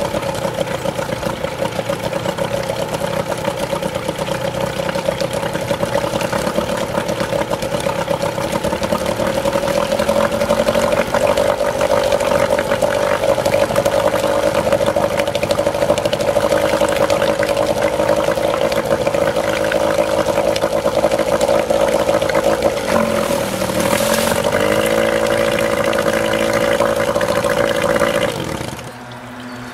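A 1991 Evinrude 3 hp twin two-stroke outboard running with its leg in a tub of water, on its first run after ten years in storage. The revs rise about a third of the way in, sag briefly and pick back up near the end, then the engine stops a second or so before the end, leaving only running water.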